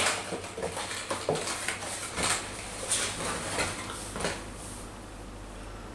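Hands handling a cardboard box and small plastic parts: scattered clicks, taps and rustles that die away about four and a half seconds in.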